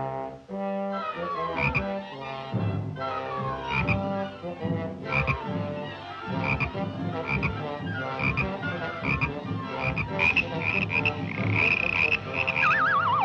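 Cartoon music score: many pitched notes with quick falling runs and a regular high accent about every half second, ending in a wavering, falling whistle-like glide near the end.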